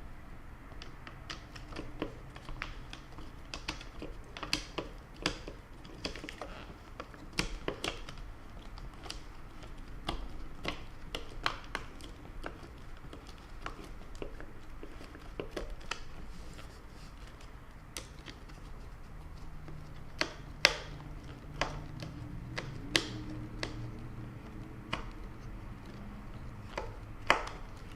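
Irregular small clicks and taps of hand work, as the shifter plate cover and its screws are fitted around the short shifter; a few sharper clicks come in the second half.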